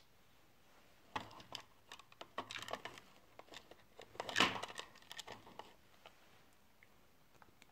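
Small plastic Lego Technic parts clicking and rattling as they are handled. There is a run of light clicks and rustles starting about a second in, loudest a little past four seconds, before it dies away.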